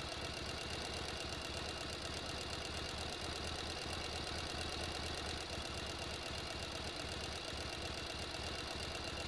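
Sewing machine running steadily at speed, its mechanism clattering in a fast, even rhythm.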